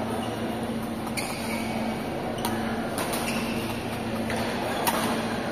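Badminton rally: a shuttlecock struck back and forth by racquets, sharp pops about a second apart, about five in all. A steady low hum runs underneath.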